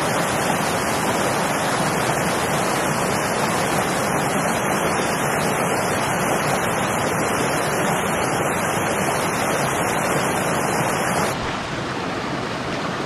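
Small mountain creek running over rocks and a little cascade: a steady rush of water, slightly quieter from about eleven seconds in.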